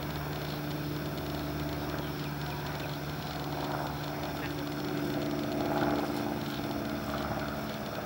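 A steady low mechanical hum made of several fixed tones, a little louder around six seconds in.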